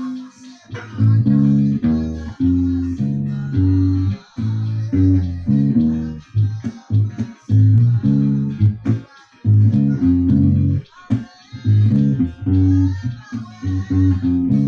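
Acoustic bass guitar played as a konpa bass line: a rhythmic run of short, low plucked notes in repeated phrases, with brief gaps between some of them.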